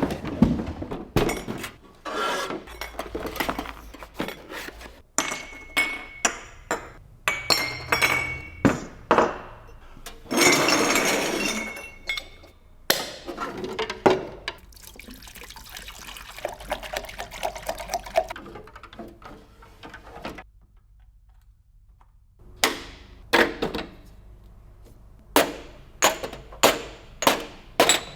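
Espresso machine and its parts being unpacked: a string of knocks and clicks as pieces are handled and set down, a stretch of packaging rustling near the middle, and a quick run of sharp clinks near the end.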